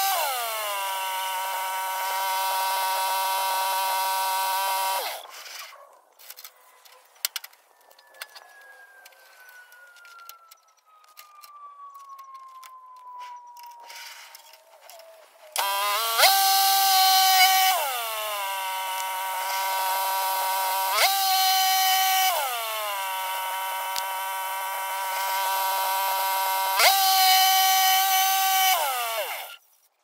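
Norwood HD36 band sawmill sawing a small black walnut log: a loud, steady high whine that sags in pitch as the blade loads into the cut. It goes quiet for about ten seconds in the middle, then cuts again with several short breaks, rising in pitch at each break and dropping as it loads again.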